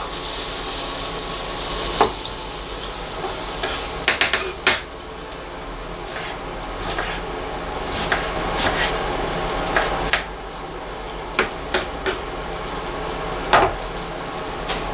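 Butter sizzling as it melts in a frying pan, a steady hiss loudest in the first few seconds. A kitchen knife dicing an onion on a wooden cutting board adds irregular sharp knocks through the rest.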